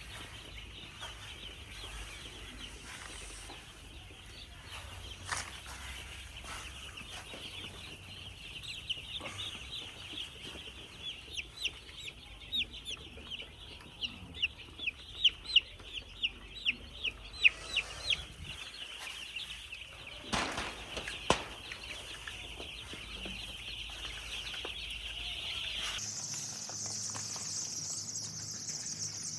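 A flock of young broiler chicks peeping continuously, with a run of loud, close peeps in the middle. Near the end the sound changes abruptly to a higher, steady hiss.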